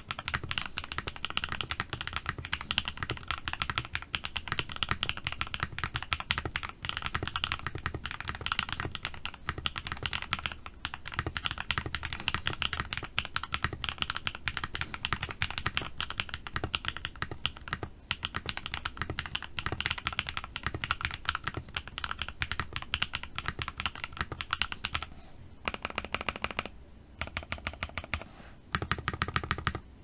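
Fast typing on a Tofu60 Redux mechanical keyboard with MZ Z1 switches, ABS double-shot Cherry-profile keycaps and an FR4 plate in a foam-dampened case: a dense, continuous stream of keystrokes. Near the end the typing breaks into short runs of quick, evenly spaced key presses with brief pauses between them.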